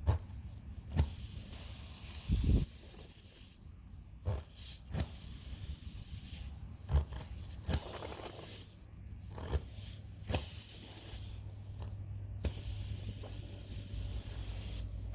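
Air hissing out of a tire's puncture hole in repeated bursts, each a second or two long, with short knocks between the bursts.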